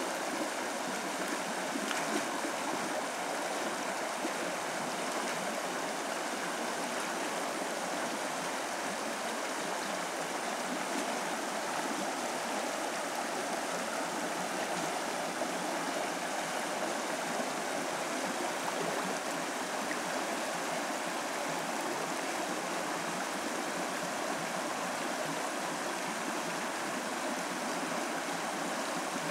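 Shallow river running over a rocky riffle: a steady rush of flowing water.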